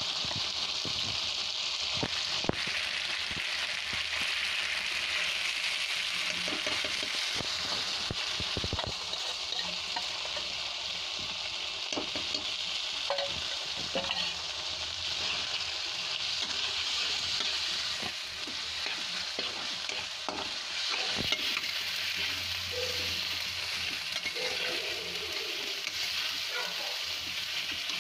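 Mawa (khoya) sizzling as it fries in ghee in a pan, with a steady hiss and the occasional click and scrape of a metal spatula stirring through it.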